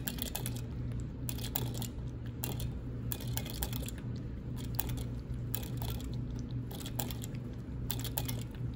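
Guinea pig drinking from a cage water bottle's stainless steel sipper tube: irregular clusters of quick metallic clicks and taps as it licks and nibbles the spout, over a steady low hum.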